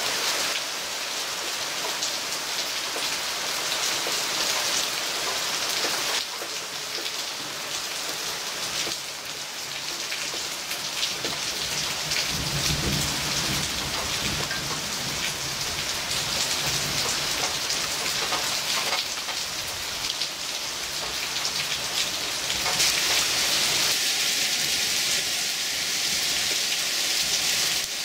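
Heavy thunderstorm downpour: a steady loud hiss of rain. Thunder rumbles low for a few seconds near the middle. A faint steady hum joins near the end.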